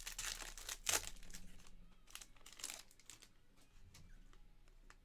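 Rustling and crinkling of a foil trading-card pack and the cards being handled, loudest about a second in, then fainter light clicks as the cards are shuffled.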